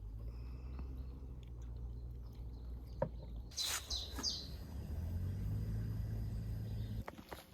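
A short high bird call about halfway through, over a steady low rumble that cuts off near the end, with a single click just before the call.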